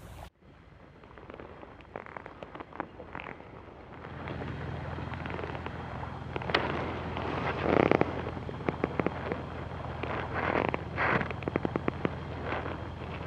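Wind and water on a small action-camera microphone aboard a fishing kayak: irregular crackling and clicking with gusty swells of noise and a low steady rumble that sets in about four seconds in.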